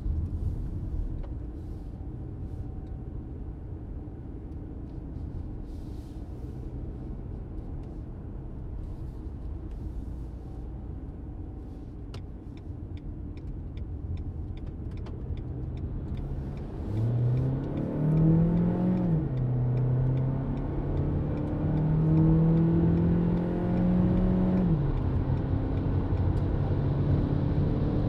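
A 2022 Renault Arkana's 1.3-litre TCe 140 turbocharged four-cylinder petrol engine is heard from the cabin. At first there is a steady low rumble at low speed. Then under hard acceleration the engine note rises, drops at an upshift of the seven-speed automatic, climbs again and drops at a second upshift, and settles into a steady note at motorway speed. A short run of regular light clicks comes about halfway through.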